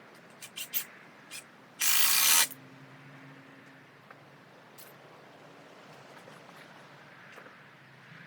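Cordless power drill running in one loud burst of about half a second, after a few light clicks.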